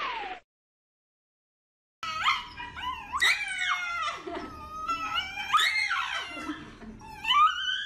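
Shiba Inu howling and screaming in protest while its paw is held on a grooming table. After a short silence, about two seconds in, come a run of high, wavering cries, each rising and falling in pitch, about one a second.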